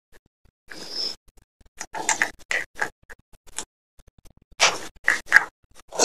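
Close-up crunching of dry baked clay (multani mitti) being bitten and chewed: a string of sharp, crisp crunches in clusters with short pauses between them.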